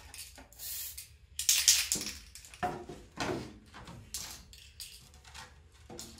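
Aerosol spray-paint can spraying in a quick series of short hissing bursts as paint is misted onto a Lexan RC car body.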